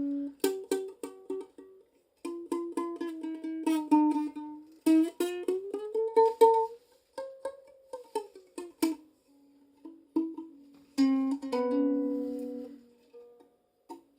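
Out-of-tune Strong Wind soprano ukulele, its nylon strings plucked one note at a time. About five seconds in, the pitch of a ringing string slides up, and a little later slides down, as a tuning peg is turned. Near the end a strummed chord rings for about two seconds.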